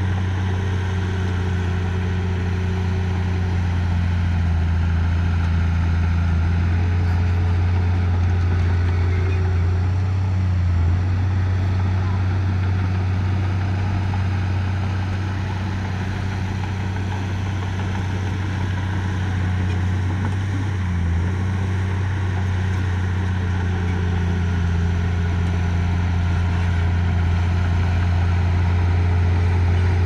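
Heavy-equipment diesel engine running steadily at a constant speed, with a low, even drone and brief small wavers in pitch about ten and twenty-one seconds in.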